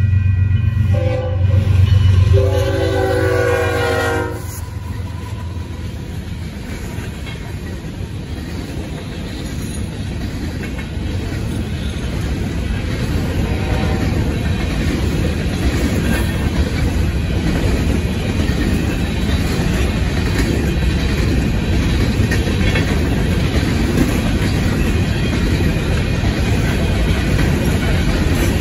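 Union Pacific freight train passing a road crossing. The GE diesel locomotives run with a heavy low hum and sound a horn blast that drops in pitch as they go by. A long train of covered grain hopper cars follows, rolling and clattering over the crossing in a steady, slowly building rumble, while the crossing bell rings.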